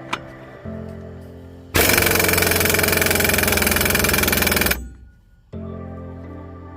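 Background music of sustained chords, broken about two seconds in by a loud burst of noise lasting about three seconds that cuts off sharply, before the music returns.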